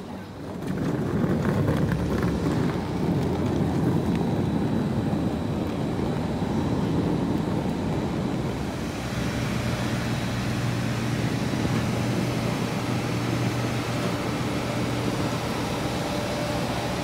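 Airport apron noise beside a parked Airbus A320: a loud low rumble, joined about nine seconds in by a steady machine hum with a faint high whine.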